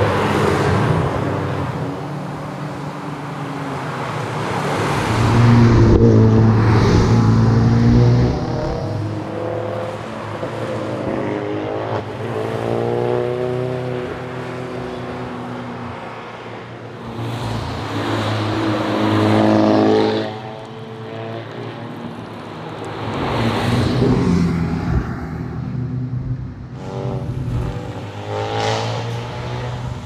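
Tour cars, led by a Porsche 911 GT3 with its flat-six engine, drive past one after another through tight bends. The engines rev up and down between the corners, and the sound swells and fades with each pass several times.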